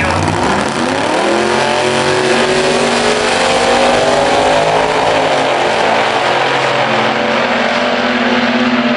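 Two gasser drag cars launching off the line together and accelerating hard down the strip. Their engines are at full throttle, rising steeply in pitch right after the launch and then climbing more slowly as the cars pull away.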